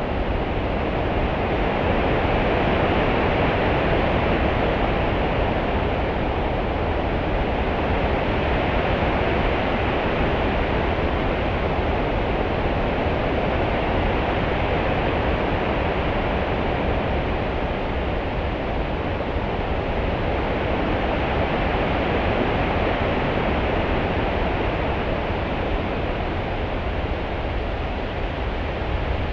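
Open-sea water ambience: a continuous wash of swell and small ripples with a low rumble underneath, slowly rising and easing over several seconds with no breaking waves.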